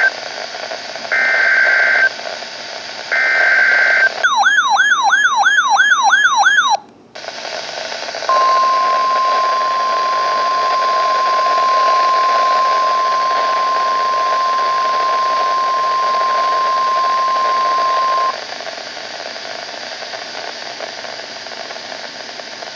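NOAA Weather Radio emergency alert tones over radio static. It begins with short buzzing digital header bursts (the SAME data code), then a warbling siren tone rises and falls about three times a second for a few seconds. After a brief dropout comes the steady 1050 Hz warning alarm tone, held for about ten seconds.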